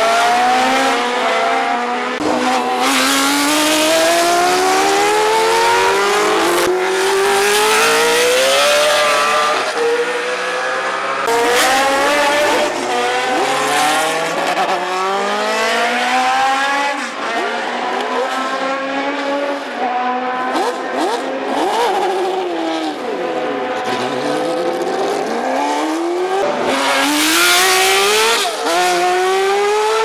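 Historic Formula One cars' racing engines at full throttle, one car after another, each climbing in pitch through the gears with sharp drops at the upshifts. About 23 seconds in, one engine falls steeply in pitch and then climbs again.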